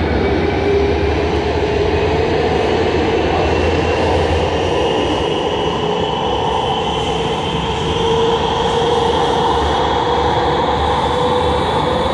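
Siemens S70 light rail car heard from inside while running: a steady rumble with the motors' whine rising slowly in pitch as the train gathers speed.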